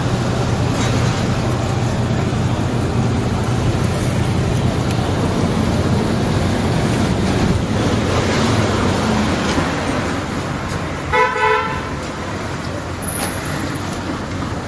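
Steady street and traffic noise, with a vehicle horn giving two short toots in quick succession about eleven seconds in.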